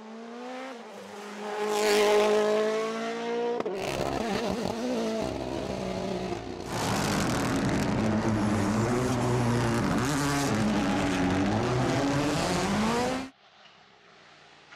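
Rally cars at full throttle on a stage, several passes one after another: engine notes rise and fall as the cars go by, with tyre and road noise. The sound cuts off abruptly near the end.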